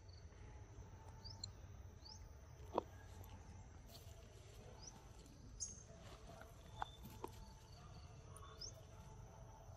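Faint forest ambience: a steady high insect drone with a few short bird chirps, and a few sharp clicks, the loudest about three seconds in.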